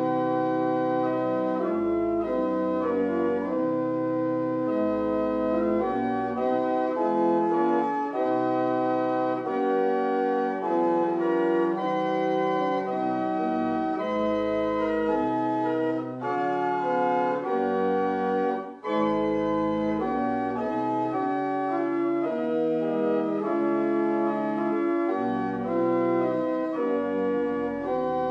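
Organ playing a hymn tune in sustained block chords that change every second or so, with a short break about 19 seconds in.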